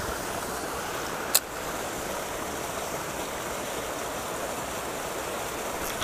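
Shallow river running over a stony riffle, a steady rushing of water. One brief, sharp high click about a second and a half in.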